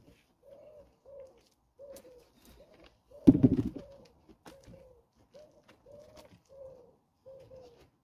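A pigeon cooing over and over in short, even notes. A loud thump a little over three seconds in.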